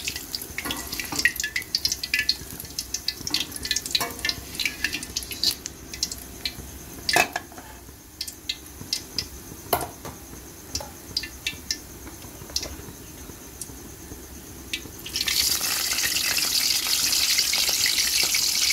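Hot cooking oil in a wok crackling and spitting with scattered sharp pops that thin out. About fifteen seconds in, a new batch of food goes into the oil and it breaks into a loud, steady sizzle.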